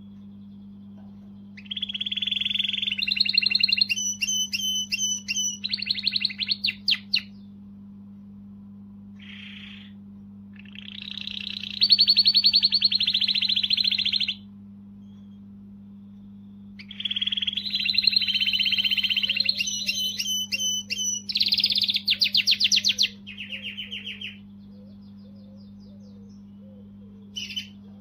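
Domestic canary singing: three long phrases of rolling trills and rapid repeated notes, with a couple of short notes between them, over a steady low hum.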